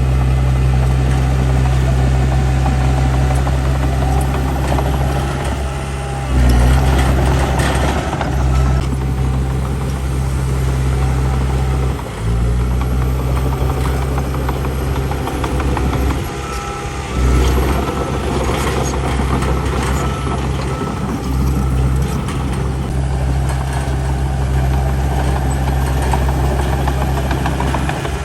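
Heavy diesel engine of earthmoving machinery running steadily and loudly. Its note briefly dips and picks up again several times.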